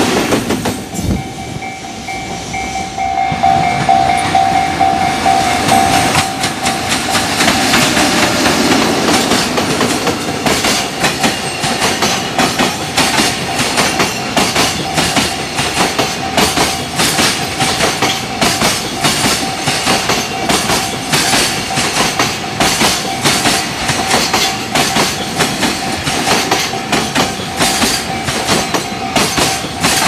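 Freight train passing at speed: an electric locomotive and then a long string of loaded container flatcars, their wheels clattering in a steady rapid rhythm over the rail joints from about ten seconds in. A level-crossing warning bell rings with a steady tone throughout.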